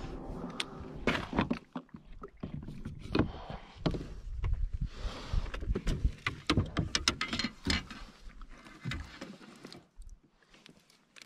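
Handling noises aboard a plastic kayak: irregular knocks, clatters and rustles as a landing net holding a trout is lifted in over the hull and the fish is unhooked with pliers. The knocking thins out to faint handling sounds near the end.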